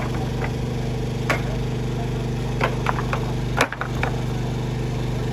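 An engine running steadily under sharp clacks of loose stones knocking together as rocks are picked up by hand from a pile. A louder knock comes a little past halfway.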